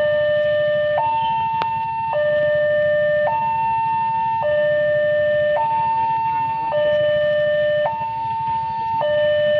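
A two-tone electronic warning alarm, switching between a low note and a higher note, each held for a little over a second, over the steady low rumble of a CC 206 diesel locomotive's engine.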